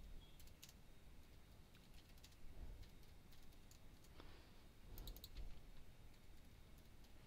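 Faint typing on a computer keyboard: scattered, irregular key clicks, with a quick run of them about five seconds in.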